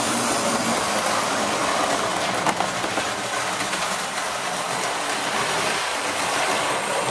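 Model railway trains running on the layout: the steady whirr of their small electric motors and wheels rolling on the track, with a single sharp click about two and a half seconds in.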